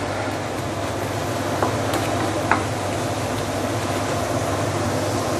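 Sambal chili paste sizzling steadily in oil in a stainless steel wok as it is slow-sautéed and stirred with a wooden spatula, with a couple of light spatula scrapes. A steady hum of a running range hood fan lies underneath.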